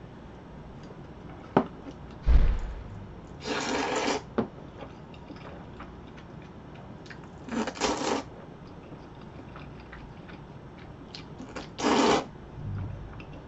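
Jjajangmyeon noodles slurped from chopsticks: three loud slurps about four seconds apart, each about half a second long. Between them come chewing and small clicks, with a low thump a little after two seconds.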